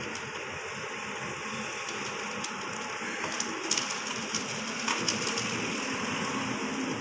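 Steady rain hiss, slowly growing a little louder, with a scattering of short, sharp high ticks about three to five seconds in.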